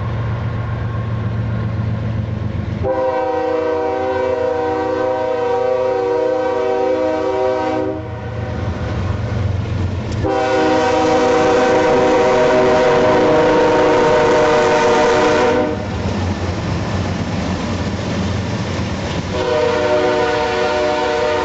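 Freight locomotive air horn sounding long blasts of several notes together: one of about five seconds, a louder second one after a short gap, and a third starting near the end. The locomotive rumbles between the blasts, with some clickety-clack.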